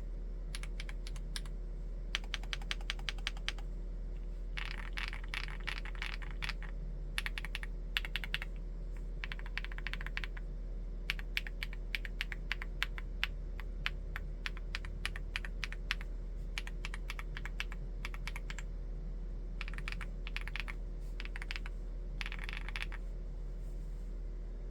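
Typing on a Chilkey ND75 full-aluminium mechanical keyboard with Gateron EF switches: quick runs of keystrokes in bursts, broken by short pauses, over a steady low hum.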